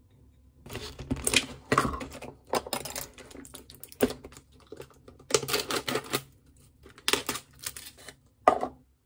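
A sealed plastic cotton candy cup being torn open, its stubborn lid crinkling and crackling in a run of short bursts with brief pauses between them.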